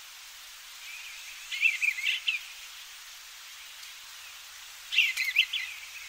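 Eastern bluebird singing: two short warbling phrases of wavering notes, one about a second and a half in and another near the end, over a faint steady hiss of outdoor background noise.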